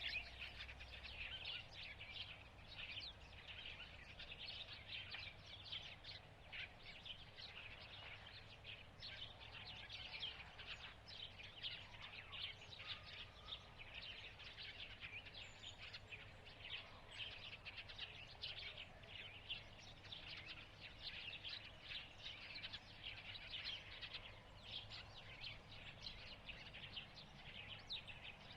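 Faint chorus of small birds chirping continuously, many short chirps overlapping, over a low steady hum.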